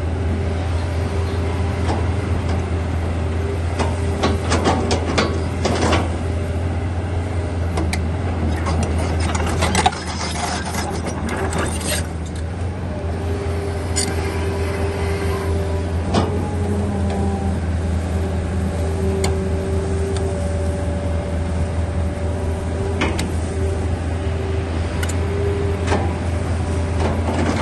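Excavator engine running steadily, with a deep hum and clicks and metallic knocks now and then, a sharp knock about ten seconds in.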